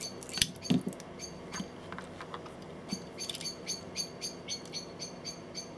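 Songbird repeating a short, high chirp over and over, about three calls a second and growing more regular after the first few seconds: an insistent call that the listener takes for a warning near its nest. A few light clicks of handling come in the first second.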